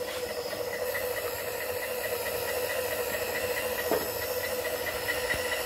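A Bridgeport-type table power feed, fitted to a milling machine's knee, runs steadily as it drives the knee down. It gives a noisy, even whine with a fast regular pulsing over it, and a faint tick about four seconds in.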